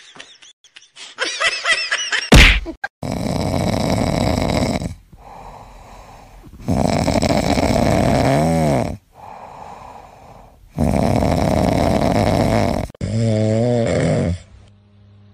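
A brief giggle and a sharp thump, then snoring: three long, rasping snores a few seconds apart from a sleeping cat, followed near the end by a shorter, wavering snore from a sleeping dog.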